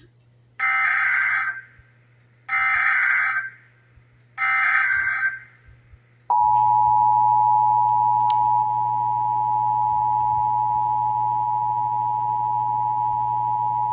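Emergency Alert System tones: three bursts of about a second each of the screechy SAME digital header data, then, about six seconds in, the steady two-tone EAS attention signal (853 and 960 Hz sounding together), which marks the start of a new Required Monthly Test alert.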